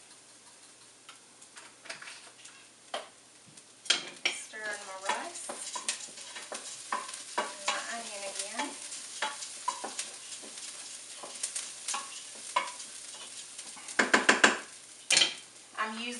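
Long grain and wild rice being stirred as it browns in a saucepan: a spoon scraping and clicking against the pan over the sizzle of the toasting rice, starting about four seconds in.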